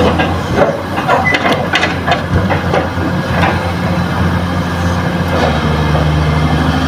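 Kobelco hydraulic excavator's diesel engine running steadily as the bucket dumps fill soil into a steel dump-truck bed. Clods and earth strike the bed in a quick run of knocks and clatters over the first few seconds.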